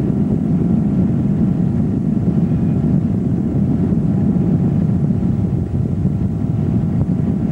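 Tow boat's engine running steadily at speed while pulling water skiers, heard from aboard the boat, mixed with the rush of wind and water.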